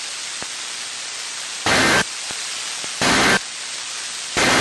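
Steady radio static hiss, broken by three short bursts of Emergency Alert System end-of-message data tones about a second apart, marking the close of the alert.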